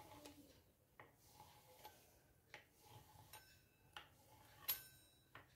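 Very faint light clicks, roughly one every second or less, from a pizza cutter's wheel rolling through dough and tapping the rolling board beneath as strips are cut; the loudest click comes near the end.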